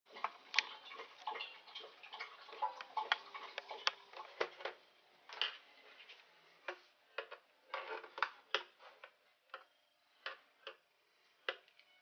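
Irregular light clicks and taps of a plastic laptop case being handled, turned over and set down, thick at first and sparser after about halfway.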